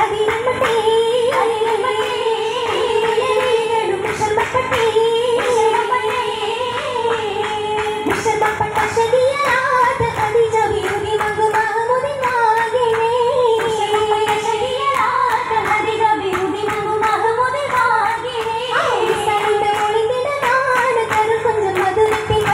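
Oppana song: female voices singing a Mappila melody in unison, with the dancers' rhythmic hand claps throughout.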